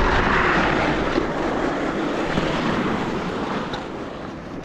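Wind rushing over the microphone, with tyre and motor noise from a 72-volt Razor electric dirt bike riding fast on an icy road. It fades gradually as the bike slows.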